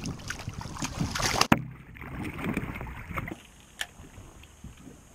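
Water splashing and churning as a striped bass is released over the side of the boat, growing louder, then cut off abruptly about a second and a half in. After that, softer wind and water noise with one sharp click about four seconds in.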